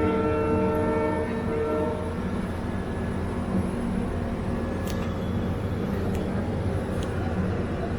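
Locomotive horn sounding a long multi-tone blast that stops about two seconds in, over the steady rumble of the moving train, with a few faint clicks later.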